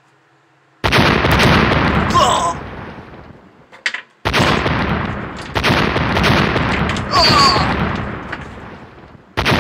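Gunfire sound effect: loud rapid shooting that starts suddenly three times, each burst fading out over a few seconds, with a short whine partway through the first two.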